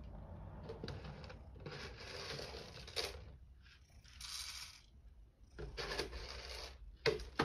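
Rustling and scraping of cat food packaging being handled, in three bursts of a second or so, with a sharp click near the end.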